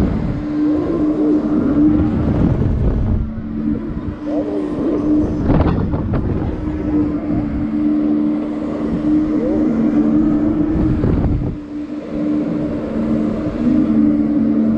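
Wind rushing over a camera riding a giant pendulum amusement ride as it swings, with a steady two-note hum underneath. The rush eases briefly about every eight seconds, at the ends of the swing.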